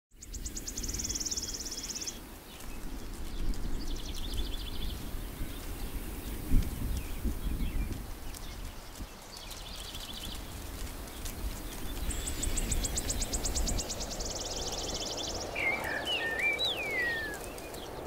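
Birds singing in open country: high, rapid trills repeat every few seconds, and near the end come a few swooping whistled notes, over a constant low rumble. A single sharp thump about six and a half seconds in is the loudest moment.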